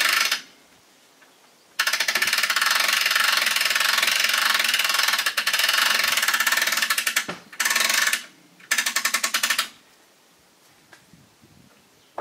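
Log-turning gear on a chainsaw mill's log deck being worked, giving a fast, even mechanical rattle. The rattle runs for about five and a half seconds, then comes in two short bursts.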